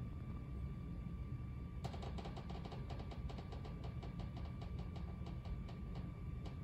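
A quick run of light clicks, about six a second, starts about two seconds in and lasts roughly five seconds, over a steady low hum with a faint high tone.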